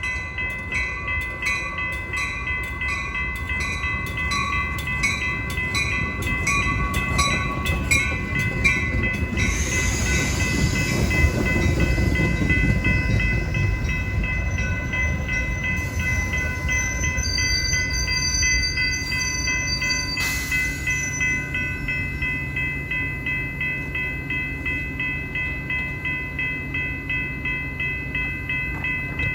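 Metra commuter train passing close by, its heavy rumble loudest about ten to fourteen seconds in, while a bell rings steadily about twice a second throughout. A thin high squeal comes in about halfway through and stops a few seconds later.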